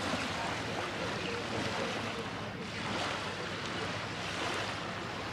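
Harbour water lapping against a stone shore, a steady wash of noise, with wind on the microphone.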